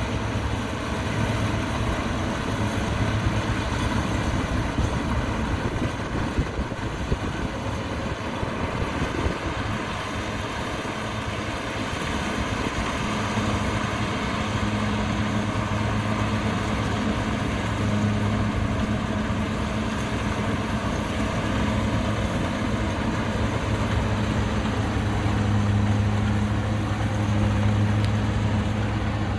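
Kubota DC60 combine harvester running steadily while it cuts lodged rice slowly: a continuous engine drone over the broad noise of the machine, the low hum swelling louder for a while in the middle and again near the end.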